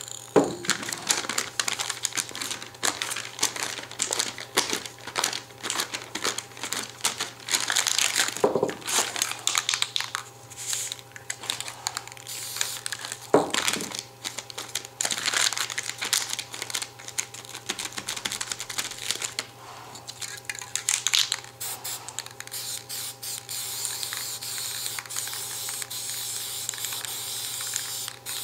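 Aluminium foil being crumpled and pressed down on wet paint, a dense irregular crackling. In the last few seconds it gives way to the steady hiss of an aerosol spray-paint can.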